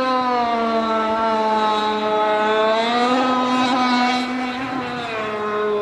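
Small engine of a remote-control model boat running at high revs as it speeds over the water, very noisy, like a chainsaw. Its pitch sags and climbs again around the middle and drops slightly near the end as the throttle changes.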